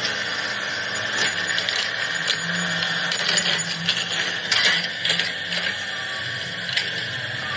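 Small electric motors and plastic gearboxes of a toy remote-control excavator whirring steadily, with scattered clicks from the gears, a cluster of them a little past the middle.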